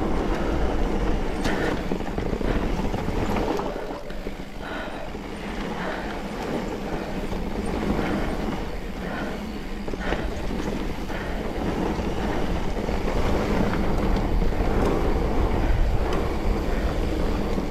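Mountain bike rolling down a rough dirt trail: tyre noise and a steady rumble, with scattered knocks and rattles from the bike and wind buffeting the microphone.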